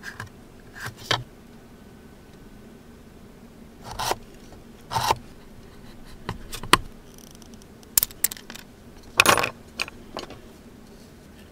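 Handling of small metal tools and plastic pieces on a plywood work board: about a dozen separate clicks, light knocks and short scrapes.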